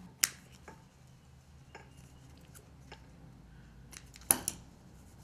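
Small scissors snipping horsehair fishing line: a sharp click just after the start, light ticks of handling, then two sharp snips a little after four seconds.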